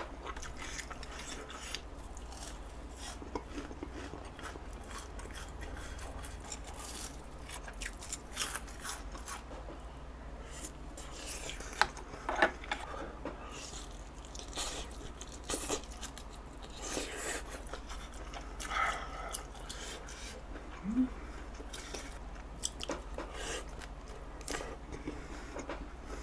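A person eating spicy braised short ribs close to the microphone: chewing and biting, with scattered short clicks and crunches throughout.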